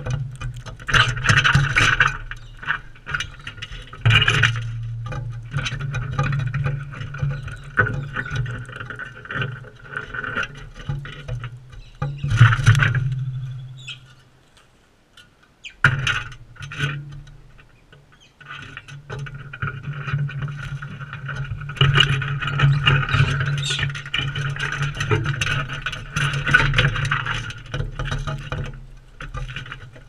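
A flock of galahs feeding right up against the microphone: harsh screeching chatter mixed with close pecking, scratching and scuffling. It dies away for a couple of seconds about halfway, then picks up again.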